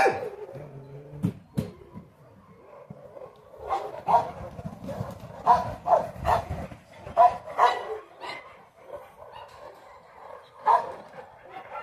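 A dog barking: about ten short, sharp barks in irregular bursts, several coming in quick pairs.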